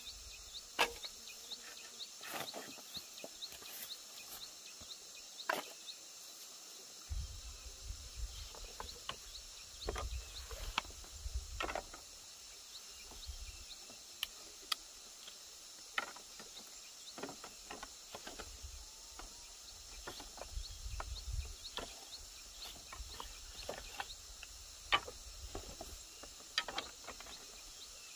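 Outdoor background: a steady high hiss, with scattered short clicks and knocks throughout and a low rumble at times.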